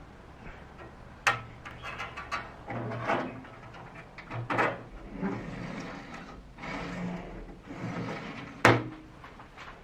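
Hand work on small parts: several sharp clicks and knocks, the loudest near the end, with scraping and handling noise between them.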